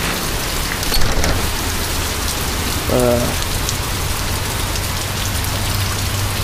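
Steady rain falling on grass and pavement in a thunderstorm, with a short vocal sound about three seconds in.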